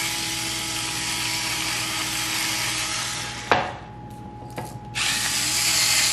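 Electric salt and pepper grinders whirring as they grind onto food. The first grinder runs for about three and a half seconds and stops. There is a sharp knock as it is set down on the counter, then the other grinder starts whirring about five seconds in.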